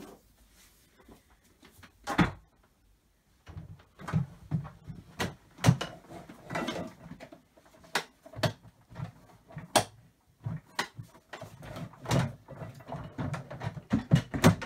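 Irregular knocks, clicks and clatter of a Nilfisk vacuum cleaner's plastic parts being handled and fitted together. The first couple of seconds are quiet, then the knocks come thick and fast.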